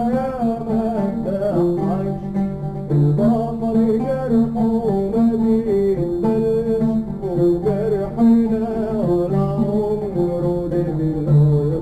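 Oud and guitar playing together with singing: a live band performance of an Arabic song.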